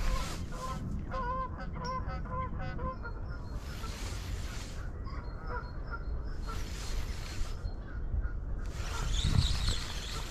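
Geese honking in a quick series of short calls over the first few seconds, with a few fainter honks later. Wind rumbles and gusts on the microphone throughout.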